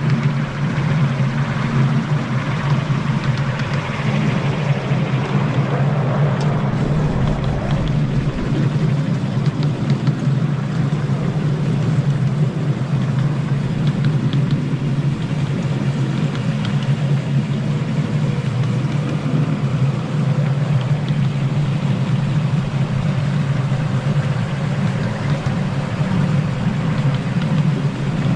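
Engine of a miniature railway locomotive running steadily, a low even drone that does not change in pitch.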